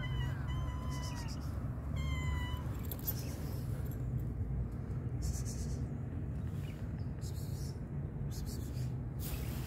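Tabby cat meowing twice: a longer meow at the start that falls in pitch at its end, then a shorter one about two seconds in, over a steady low rumble.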